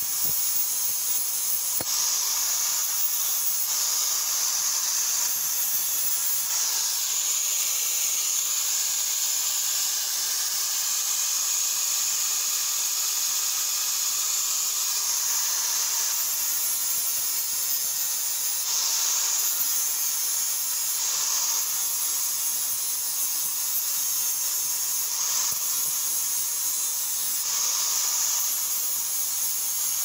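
Electric angle grinder with an abrasive disc grinding a steel axe head: a steady high grinding hiss over the motor's hum, swelling and easing every few seconds as the disc is pressed to the steel and eased off.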